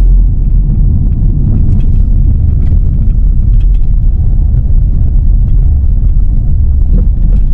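Loud, steady low rumble of a car driving at highway speed: road and wind noise heard from inside the moving vehicle.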